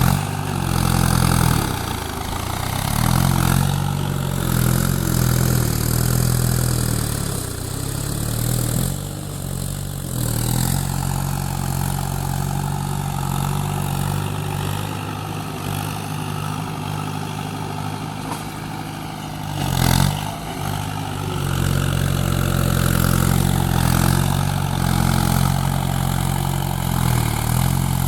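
Hydraulic excavator's diesel engine running under working load, its pitch rising and falling as the machine works, with one sharp knock about two-thirds of the way through.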